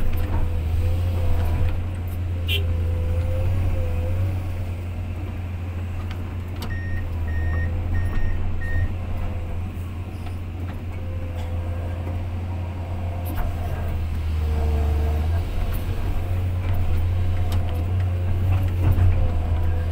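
Excavator's diesel engine running steadily with a low drone, heard from inside the cab, with a faint wavering hydraulic whine. About seven seconds in, four short beeps of a warning alarm sound about half a second apart.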